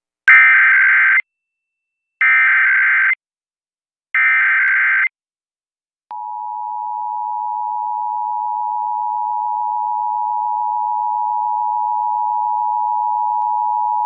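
Emergency Alert System Required Monthly Test on FM radio: three short bursts of screeching digital header data tone about two seconds apart, then about six seconds in the steady two-note EAS attention tone begins and holds.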